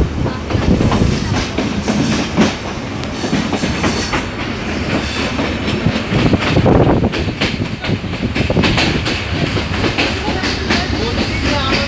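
Passenger train running along the track, heard from an open carriage doorway: a steady rumble of the wheels, with frequent clicks and clacks as they pass over the rail joints.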